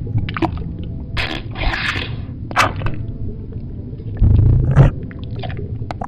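Irregular scraping and rasping noises heard through an old microphone stuck down a pipe, with a loud low rumble about four seconds in.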